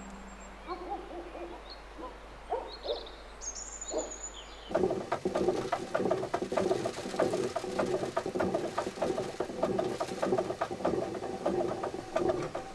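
Birds calling faintly. About five seconds in, a traditional water-powered grain mill takes over, louder: the upper millstone turning on the fixed lower one with a fast, even wooden clatter.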